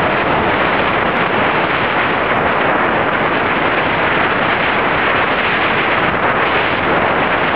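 Steady, loud rushing of wind and sea at the shore, an even noise that does not let up.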